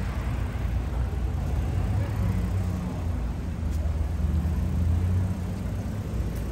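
Street traffic: a motor vehicle's engine running with a steady low hum, over general city street noise.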